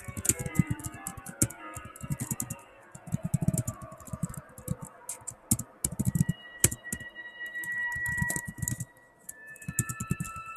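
Keystrokes on a Chromebook laptop keyboard, typed in quick bursts with short pauses, over background music; long held high notes come into the music about halfway through.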